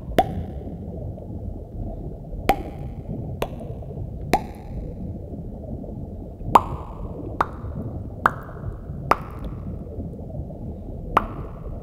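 A series of short water-drop plops, nine at uneven intervals, each with a brief ringing tail, over a steady low rumble.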